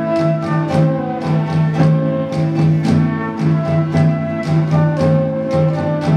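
Instrumental ensemble music: a steady low drone held under a moving melody line, with a regular percussion beat of about two to three strikes a second.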